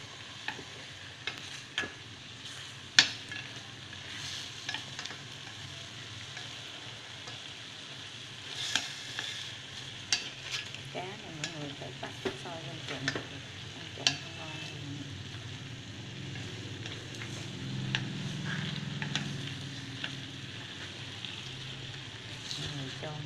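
Marinated catfish pieces sizzling in an aluminium pot as they are turned with chopsticks, with irregular sharp clicks of the chopsticks against the pot over a steady hiss.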